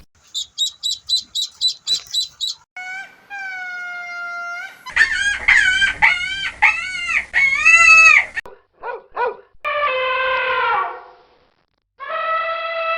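A run of different animal calls one after another: a quick string of high chirps for about two seconds, then longer pitched calls and cries of other animals in turn.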